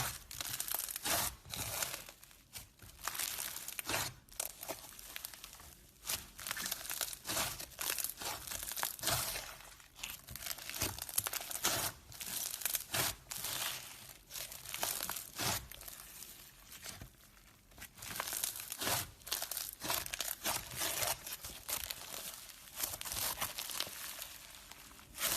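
Close-miked crisp crunching and crinkling as a soft material is cut or worked by hand, coming in irregular bursts with short pauses between them.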